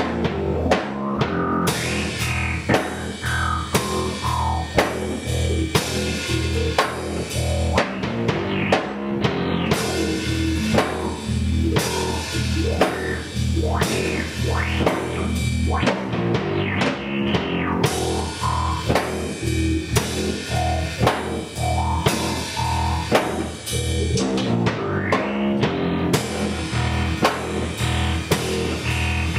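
Rock music: a heavy guitar riff over a full drum kit with a steady beat.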